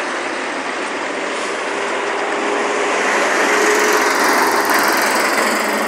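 Motor vehicle engine and road noise in street traffic, steady and growing a little louder in the second half.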